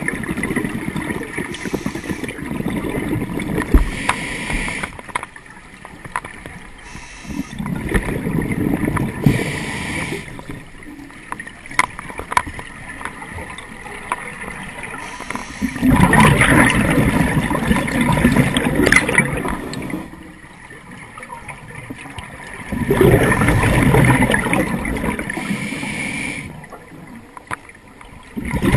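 Scuba diver breathing through a regulator underwater: four long rushes of exhaust bubbles several seconds apart, with quieter inhalations between.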